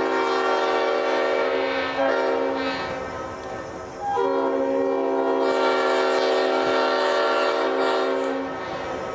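Leslie RS-5T five-chime air horn blowing a steady multi-note chord in long blasts. The first blast breaks off about two seconds in with a brief re-sound that fades away, and a second long blast starts about four seconds in and stops shortly before the end.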